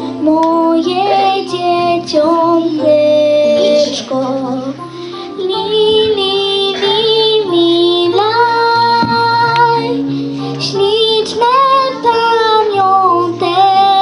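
A young girl singing a song into a microphone, with a sustained instrumental accompaniment underneath.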